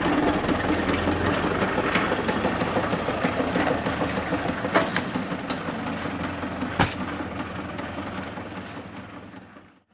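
Steyr 50 diesel tractor engine running steadily, with its tractor-mounted cement mixer, and a few sharp knocks about five and seven seconds in. The sound fades out at the end.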